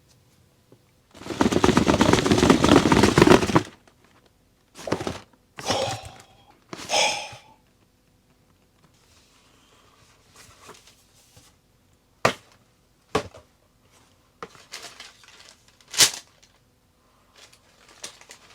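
Unboxing handling noises: a long rustle of paper or packaging about a second in, then a few shorter rustles, and later several sharp clicks and snaps.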